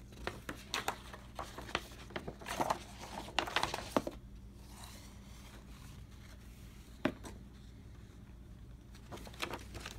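Paper rustling and crinkling as a large folded rules sheet is unfolded and turned over by hand, with scattered scrapes and clicks, busiest over the first few seconds and then quieter apart from one sharp click.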